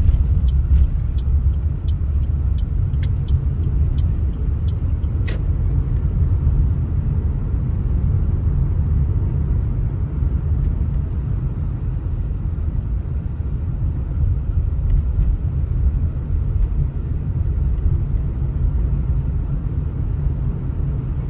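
Wind buffeting the microphone: a steady, heavy low rumble, with a few faint ticks in the first few seconds.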